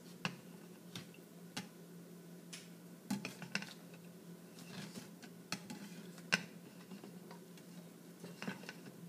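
Pink wire egg dipper and egg knocking against a plastic cup of egg dye, making scattered light clicks and taps at irregular intervals over a faint steady hum.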